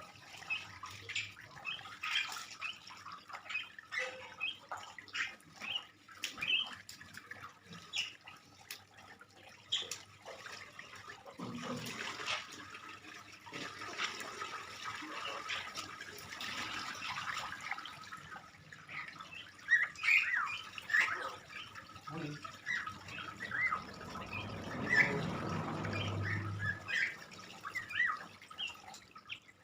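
A starling (jalak) chattering, a run of short chirps and squawks.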